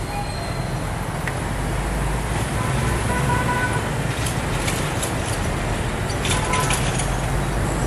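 D19E diesel-electric locomotive running with a steady low rumble as it draws a passenger train slowly up to a level crossing, mixed with motorbike engines and traffic crossing the tracks and a few short horn beeps.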